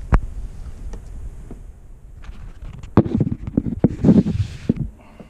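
Camera handling noise: a sharp knock just after the start, then a cluster of thumps and rubbing with a low rumble about three to five seconds in as the camera is moved and set down.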